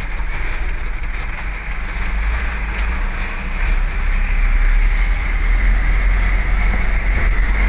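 Dump truck's diesel engine running steadily under way, heard from inside the cab with a deep rumble, growing a little louder about four seconds in.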